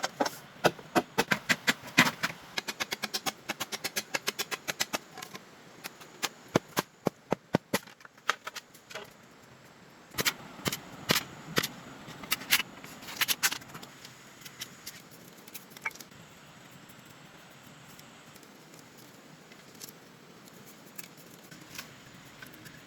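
Quick runs of sharp knocks or taps, several a second, then a few louder scattered knocks about ten seconds in, before only faint background remains.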